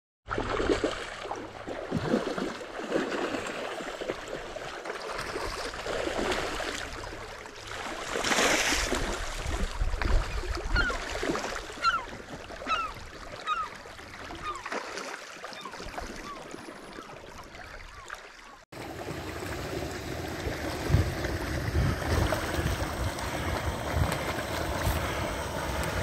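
Shallow, clear stream rippling and trickling over a gravel bed. About two-thirds of the way through it cuts to a steadier rush of water spilling through a beaver dam, with wind buffeting the microphone.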